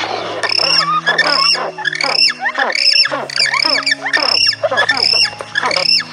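A king penguin colony calling: many short, harsh squawks in quick succession, about two a second, over background music with a low bass line.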